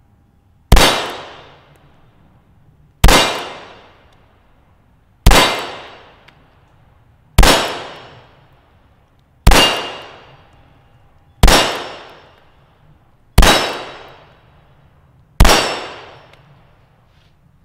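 Eight single shots from a CZ vz.38 (P-39) .380 ACP pistol, fired slowly about one every two seconds through its long double-action-only trigger, each a sharp crack with a short echo dying away. A few are followed by a faint ring from the steel plate targets.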